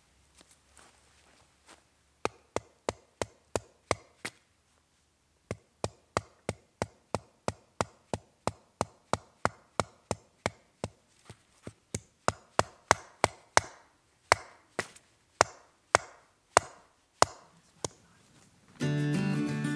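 Metal tent peg being driven into the ground with a wooden stick: a long series of sharp knocks, about three a second, with a short pause after the first dozen or so. The knocks stop near the end and acoustic guitar music begins.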